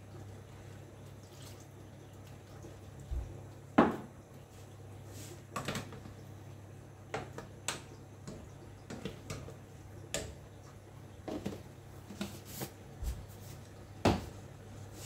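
A spoon stirring and scraping a stainless-steel saucepan of thickening mushroom and onion filling, with scattered knocks and clinks of utensil on pot, the sharpest about four seconds in and near the end, over a steady low hum.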